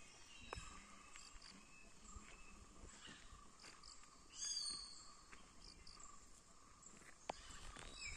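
Quiet forest ambience: a steady faint insect drone, a short high chirp about halfway through, and a couple of faint sharp snaps.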